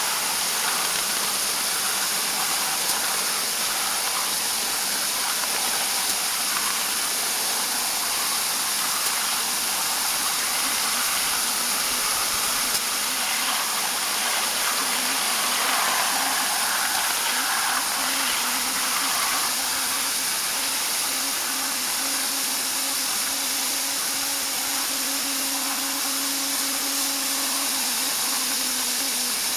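Ridable-scale live steam locomotive running along the track: a steady hiss of steam mixed with running noise. A faint steady tone comes in about halfway and drops away near the end.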